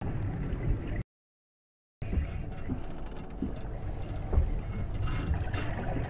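Steady low water gurgling and sloshing, with a few soft knocks. The sound cuts out completely for about a second near the start.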